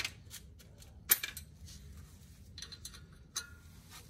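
Metal hand tools, such as sockets, clinking and clattering against each other a few times, with the sharpest clinks about a second in and again past three seconds.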